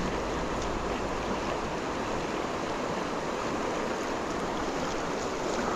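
River water rushing steadily, an even wash of current noise.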